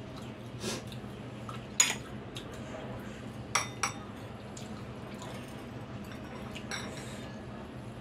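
Metal fork and spoon clinking against a ceramic bowl of soup: about five sharp clinks, the loudest one about two seconds in, two close together near the middle. A steady low hum runs underneath.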